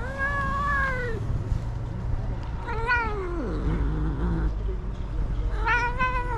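Tabby cat meowing three times in long, drawn-out calls, about a second each. The second meow slides down in pitch and trails off into a low warble.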